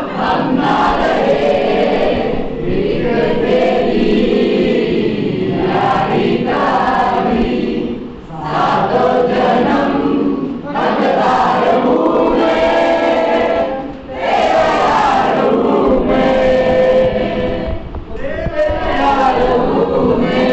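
A mixed group of young men and women singing a Hindi song together in chorus, line by line, with a few short pauses between phrases.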